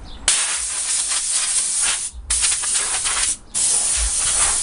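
Compressed-air blow gun blowing sanding dust and loose rust off a cleaned metal go-kart frame. It gives three long hissing blasts, each one to two seconds, with brief pauses between.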